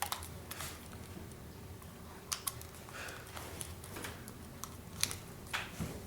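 Scattered light plastic clicks and taps, about ten at irregular intervals, as a camera is handled and fitted into a tripod's camera mount.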